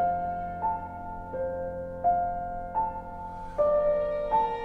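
Slow background piano music, a new note struck about every three quarters of a second, with fuller chords near the end.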